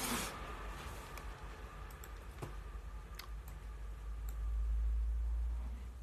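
A few scattered light clicks over a low rumble; the rumble swells about four seconds in and fades near the end.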